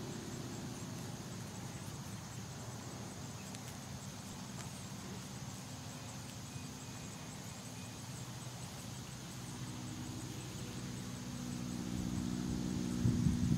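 A distant motor running steadily at a low pitch, getting louder over the last few seconds.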